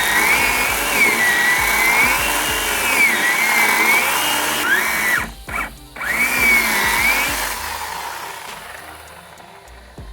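Chainsaw running under load while cutting up a felled tree, its engine pitch wavering up and down as the chain bites. About five seconds in the throttle drops off twice in quick succession, then it revs back up before the sound fades out near the end, where music begins.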